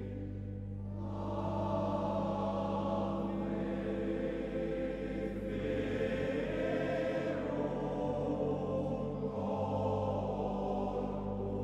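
Large men's choir singing sustained chords, without a break.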